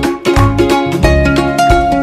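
Background music: a plucked-string tune over a steady bass beat.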